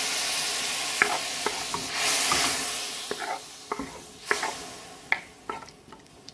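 Conch, onion and tomato sizzling in a hot pot just after a half cup of water has gone in, the sizzle loud at first and then fading away. A spoon stirs the pot throughout, with a series of sharp knocks and scrapes against its sides.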